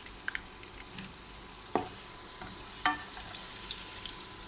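Beef frankfurters frying in hot oil in a pan: a steady sizzle with scattered small crackles and pops. Two sharper clicks stand out, a little under two seconds in and about three seconds in.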